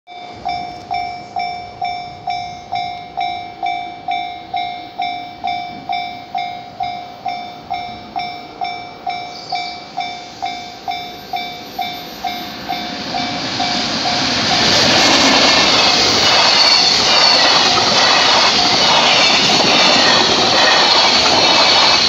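Japanese level-crossing warning bell dinging about twice a second. From about 13 seconds in, a JR Freight container train passing over the crossing rises up and drowns it out, with the steady rumble and clatter of its wagons on the rails.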